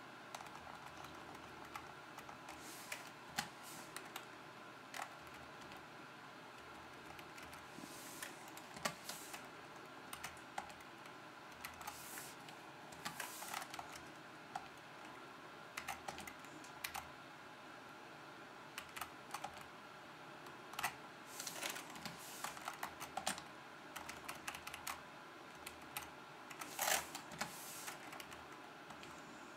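Computer keyboard keys pressed irregularly to move through BIOS menus and change settings: single clicks and short quick runs of key presses.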